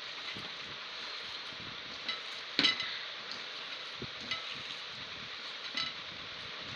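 Bare hand squeezing and kneading minced beef mixed with flour in a plastic bowl: soft wet squelches now and then, the loudest about two and a half seconds in, over a steady hiss.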